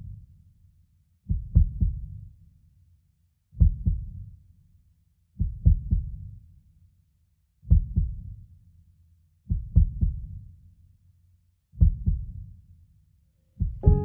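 Recorded heartbeat sound: slow, deep double and triple thumps, each group fading out, repeating about every two seconds. A piano comes in right at the end.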